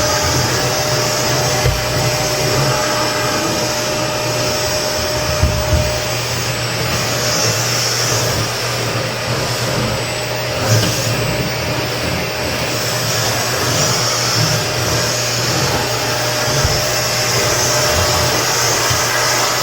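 Vacuum cleaner running steadily, a continuous whirring rush with a low hum underneath. A thin steady tone in it fades out about six seconds in, and a couple of brief small knocks come through.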